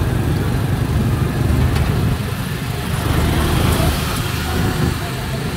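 Steady low engine rumble of a slow-moving road vehicle, with street traffic around it.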